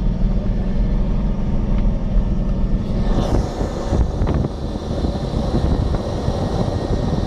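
Off-road 4x4 driving through fresh snow, its engine droning with a steady low hum in the cab. About three seconds in, this gives way to a rougher rumble with wind noise.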